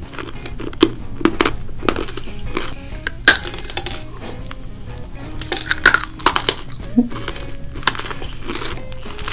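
Candy pieces bitten off a pinwheel candy and chewed close to the microphone: a run of irregular sharp cracks and crunches.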